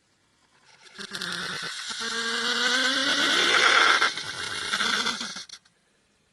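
A person snoring: one long, rough snore of about five seconds, starting about a second in, with a wavering pitched tone running through it.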